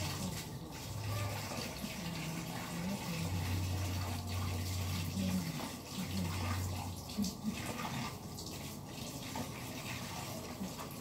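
Water running from a wall tap into a large plastic drum, with hands sloshing and working laundry in the water. A low hum comes and goes underneath.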